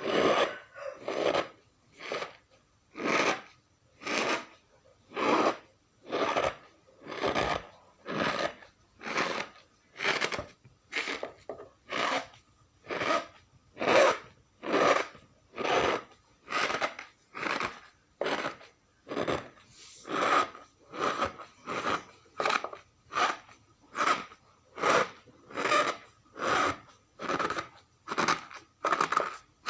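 Cornstarch powder being pressed and worked, giving a squeaky crunch that repeats about once a second in an even rhythm.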